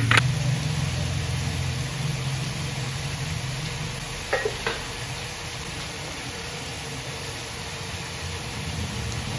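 Shredded chicken frying in a pan with a steady sizzle. A low hum fades out after about two seconds, and a few light clicks sound: one at the start and two close together about four and a half seconds in.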